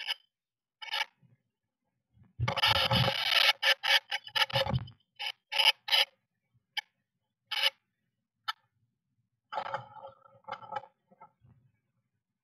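Blue tit moving about in its nest cup inside a wooden nest box: bursts of scratching and rustling in the moss and wool lining, with short taps and clicks from claws and bill. The longest burst of scratching comes about two and a half seconds in.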